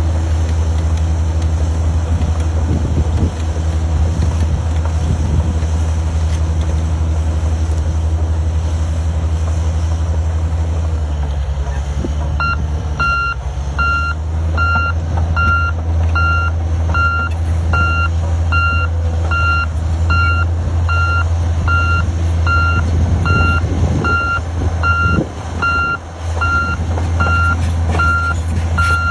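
Backhoe loader's diesel engine running steadily. About twelve seconds in, its reversing alarm starts beeping, a little more than once a second, which signals the machine is in reverse.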